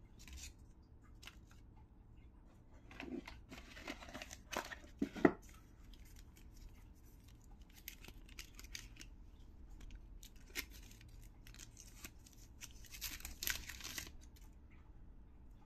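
Hands handling smartwatch packaging: several bursts of crinkling and tearing of plastic wrap and paper, with a sharp click about five seconds in and another past the middle.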